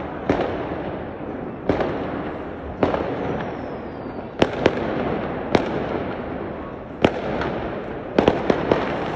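New Year fireworks and firecrackers going off: about a dozen sharp bangs at irregular intervals over a continuous background din, with a quick cluster of bangs near the end.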